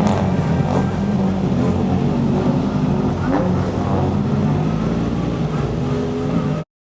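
Toyota 4A-GE 5-valve four-cylinder engine running at low, fairly steady revs, its exhaust note strong. The sound cuts off suddenly near the end.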